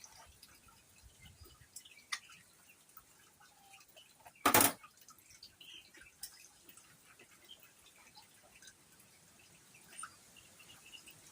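Small, scattered wet clicks and drips from hand-plucking a scalded chicken, with one short, loud noise about four and a half seconds in.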